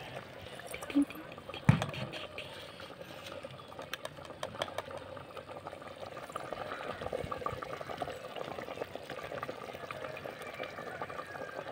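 A pot of curry boiling, a steady low bubbling, with a single sharp knock about two seconds in.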